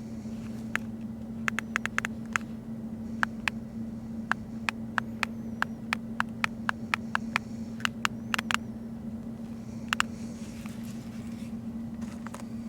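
A steady low hum with a quick, irregular run of sharp clicks through most of the first nine seconds, then two more clicks about ten seconds in.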